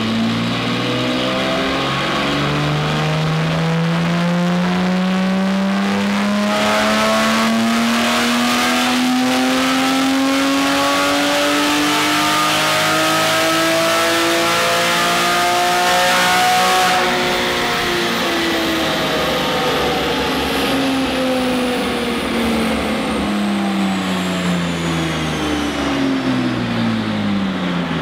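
Porsche 991 Carrera flat-six engine breathing through a Fabspeed Valvetronic aftermarket exhaust on a chassis dyno pull. The engine note climbs steadily for about seventeen seconds, then falls away as the revs drop back down.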